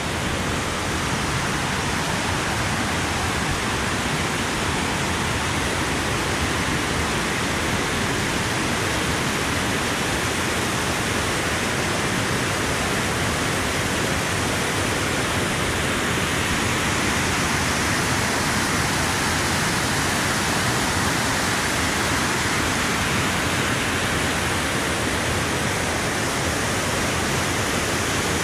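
Waterfall roaring: a steady, loud rush of falling water with no change in level.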